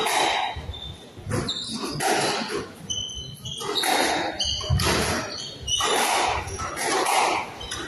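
A squash rally: the ball knocks sharply off the rackets and the walls every second or so, and court shoes squeak in short high chirps on the wooden floor.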